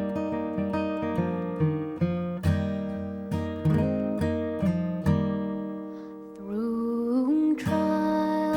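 Acoustic guitar strummed in a slow, steady rhythm, playing an instrumental passage of a worship song. A singing voice comes in near the end, sliding up onto a held note.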